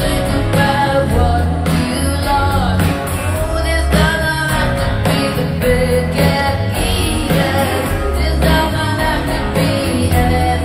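Live rock band playing a song with a woman singing lead over steady bass and drums and guitar.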